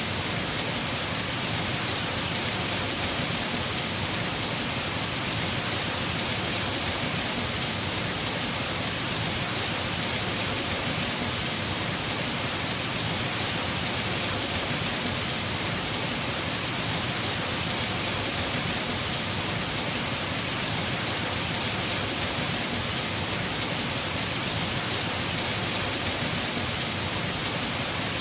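Heavy rain falling steadily on a house roof, a dense even hiss without breaks.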